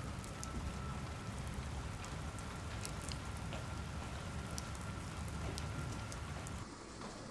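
Heavy rain pouring down: a steady dense hiss with a low rumble and scattered sharp drop ticks, which falls away suddenly near the end.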